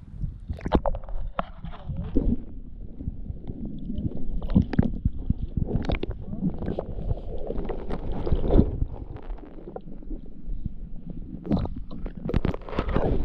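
Muffled water sloshing and gurgling heard through a camera held at or under the water's surface, with many irregular small clicks and knocks.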